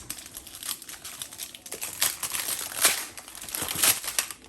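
Plastic packaging crinkling as it is handled, an irregular run of rustles and crackles that grows louder and busier about halfway through.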